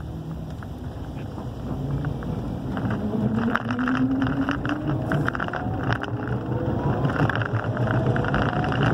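Electric motor of a Volkswagen converted from gasoline to electric, whining as the car pulls away from a stop. The whine rises steadily in pitch about two and a half seconds in, with no gear changes, while road and tyre noise grow louder.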